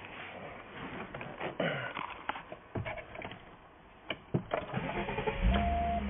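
Clicks and handling noise inside the van, then about five seconds in the 1997 Volkswagen Eurovan's 2.6-litre VR6 (AES) engine starts and settles into a steady idle, with a steady electronic tone over it. It is running well on a new waste-spark ignition coil that cured the cylinder 1 and 6 misfire.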